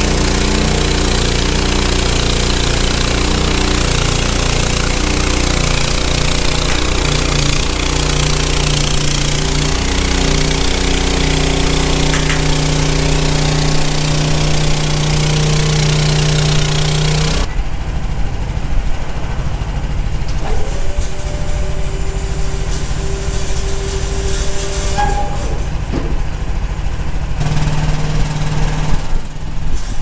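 Mini skid steer engine running at high throttle with a loud, noisy rattle over it as the tracked machine drives up steel ramps onto a trailer. About two-thirds of the way in the rattle stops abruptly and the engine runs on more quietly, picking up again near the end.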